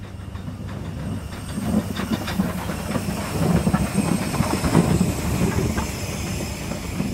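Hunslet Austerity 0-6-0 saddle-tank steam locomotive No. 198 'Royal Engineer' running slowly past, steam hissing over a low steady hum, with clanks and knocks from the wheels and rods on the rails. It grows louder and is loudest about five seconds in.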